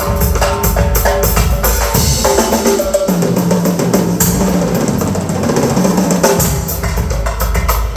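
Live Latin band music carried by drum kit and percussion. About two seconds in, the low bass drops away for a few seconds, leaving the drums and higher instruments, and comes back in near the end.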